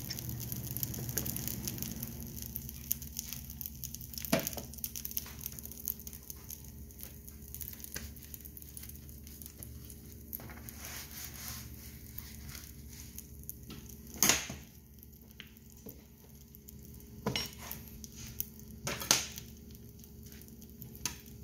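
Quiet kitchen background: a steady low hum with faint sizzling at first, broken by a few scattered clinks and knocks of dishes and utensils, the loudest about 14 and 19 seconds in.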